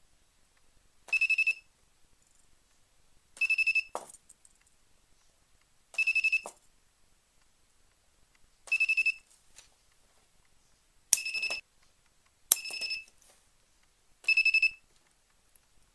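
Spot welder board's buzzer giving short high beeps, seven in all, one every two to three seconds, as the probes weld nickel strip onto a battery cell. Twice near the end a sharp snap of the weld pulse comes just before a beep.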